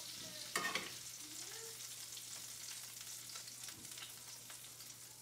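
Butter and oil sizzling steadily in a cast iron skillet still hot from a 450°F oven, with a brief clatter about half a second in.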